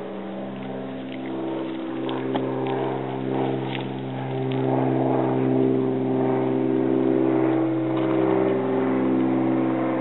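Propeller training aircraft flying overhead: a steady engine drone that grows louder over the first half and then holds at full strength.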